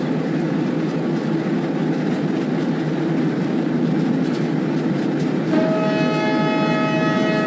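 ALCO WDG-3A diesel locomotive's 16-cylinder ALCO 251 engine running loud and steady. About five and a half seconds in, the locomotive's horn starts sounding a long, steady blast.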